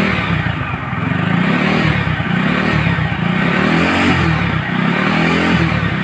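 A Euro Rapido motorcycle's small single-cylinder engine, a Smash clone, revved up and down several times. The revving tests the newly fitted full-wave charging, which is charging: the battery voltage rises to about 14.5 V with the revs.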